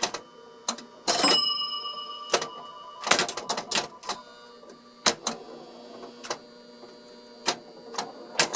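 Bally 4 Million BC electromechanical pinball machine in play: flippers, bumpers and relays clacking in irregular bursts, some hits setting off ringing scoring bells, with a dense run of hits about three seconds in.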